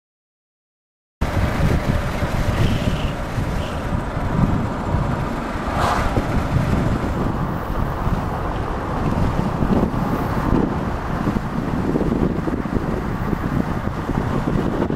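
Road and wind noise heard from a car driving at speed: a steady low rumble with wind buffeting the microphone, starting after about a second of silence, with a brief louder rush about six seconds in.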